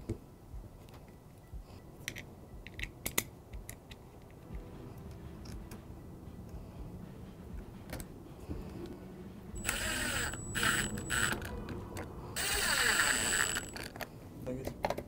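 Light clicks and taps of parts being handled, then a small power screwdriver runs in two short bursts of about a second and a half each, with a thin high whine, driving in the paddle-shifter screws.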